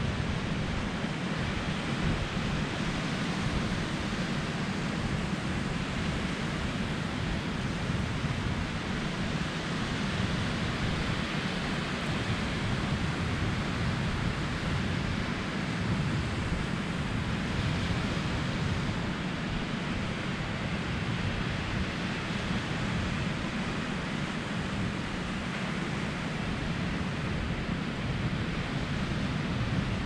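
Steady rush of small surf breaking and washing up a sandy beach, with wind on the microphone adding a low rumble.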